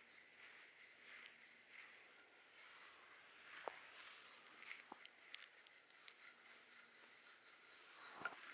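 Faint, soft rustling and scratching from hands or a tool working over hair, skin or fabric during a massage, with a few light clicks scattered through.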